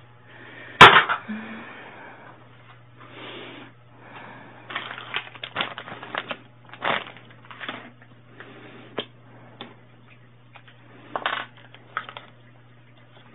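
A sharp knock about a second in, then a scattered string of small clicks and rustles as small plastic items and a wrapper are handled on a desktop, over a faint steady hum.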